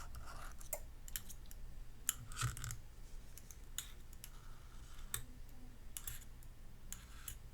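Faint, irregular clicks and light taps from small tools and parts being handled on the work mat, with a few brief soft hisses in between.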